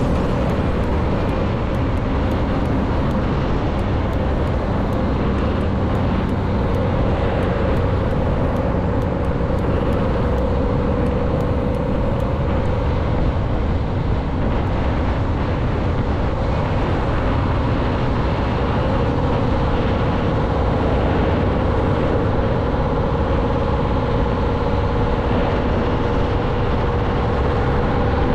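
Scania truck engine running steadily in a low gear down a steep descent, holding about 40 km/h, with a constant drone and road noise.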